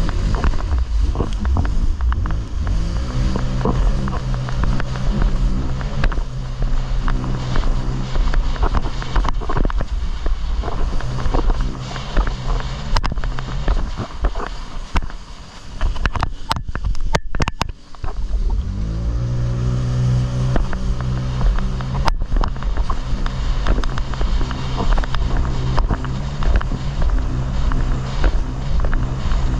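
Jet ski engine running under way, with heavy wind rumble on the microphone. A little past halfway the engine eases off briefly, then revs back up and runs on steadily.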